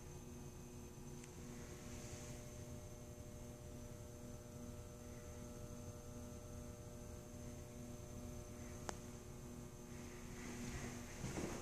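Steady electrical hum made of several constant tones with a faint high whine above them. There is a single sharp click about nine seconds in, and soft irregular knocks near the end.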